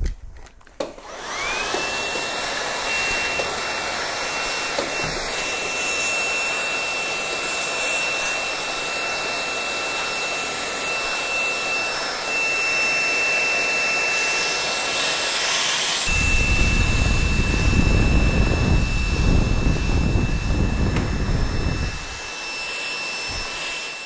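Dreame V10 cordless stick vacuum, fitted with a narrow brush nozzle, switched on in turbo mode: a click, then the motor spins up within about a second to a steady high whine over rushing air. About two-thirds of the way through, a louder low rushing sound joins in for several seconds, then drops away while the motor keeps running.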